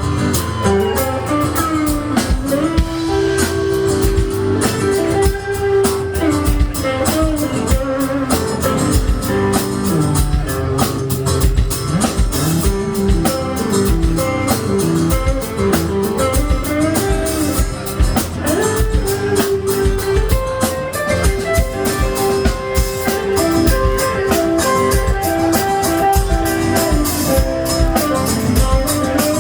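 Live band playing an instrumental passage: guitar with bending, sliding notes over a drum kit.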